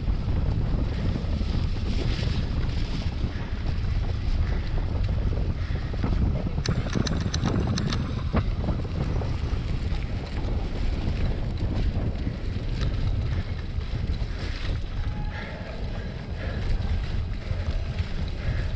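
Wind rumbling on the microphone of a cyclocross bike ridden over a muddy course, with a cluster of sharp rattling clicks from the bike about seven to eight seconds in.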